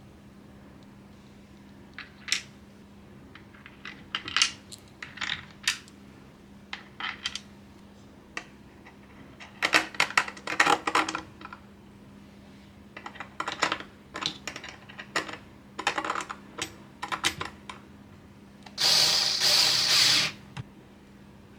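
Small hard parts being handled on a desk: a run of light clicks and clinks in clusters, then a louder rustle of packaging for about a second and a half near the end.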